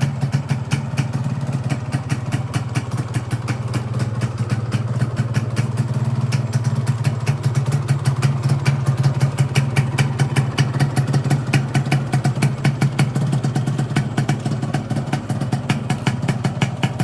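Motorcycle engine idling steadily, with a regular pulsing beat.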